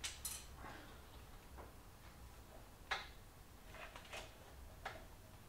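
A handful of light, scattered clicks and taps from hands working on parts and wiring inside a motorcycle's frame, the sharpest about three seconds in.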